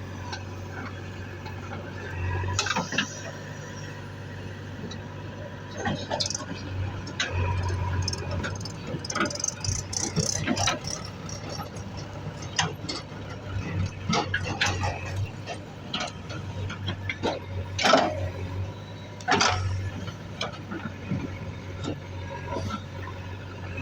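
A diesel engine of heavy earth-moving machinery running steadily, with many short clanks and knocks over it. The loudest knock comes about 18 seconds in, and a second strong one comes about a second and a half later.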